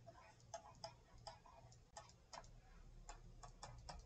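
Faint, irregular clicks of a stylus tapping and dragging on a tablet screen during handwriting, several a second.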